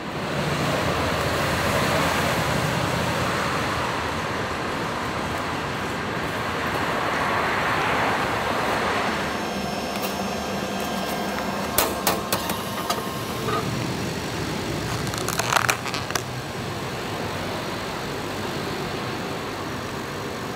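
A hot-meal vending machine runs with a steady whirring noise while it heats a meal. About halfway through come several sharp plastic clicks and rattles, and again a few seconds later, as a plastic takeaway container is pulled out through the dispensing flap.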